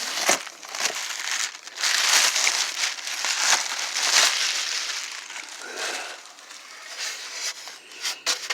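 Plastic packaging and box material crinkling and rustling in irregular bursts as a new air compressor is pulled out of its box.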